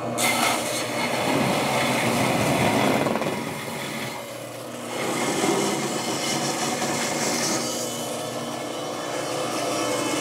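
Band saw cutting through wood, its motor running under the noise of the blade in the cut. The cutting eases off about four seconds in and picks up again a second later.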